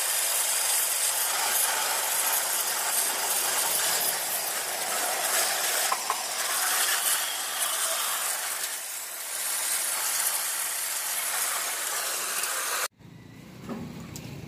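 Hopper-fed sandblasting gun blasting grit onto an aluminium motorcycle crankcase: a loud, steady hiss of spray and sand striking metal, which cuts off suddenly shortly before the end.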